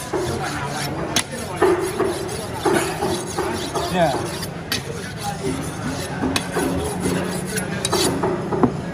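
Large curved fish-cutting knife sharpened on a whetstone: the steel blade is drawn over the stone again and again, a repeated rasping scrape.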